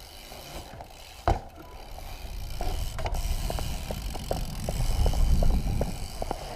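BMX bike rolling, its freewheel hub ticking in short irregular clicks under a rumble of tyres and wind on the microphone, with a single sharp knock about a second in.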